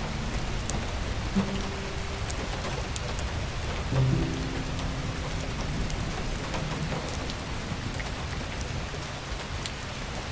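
Wood fire in a fireplace crackling: a steady hiss with scattered sharp pops. Soft background music plays a few held notes about one and a half and four seconds in.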